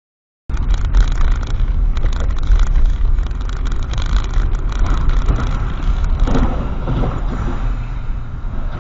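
Dashcam audio from inside a car driving on a wet road: a loud, steady low rumble of engine and tyres with a hiss over it, cutting in abruptly about half a second in.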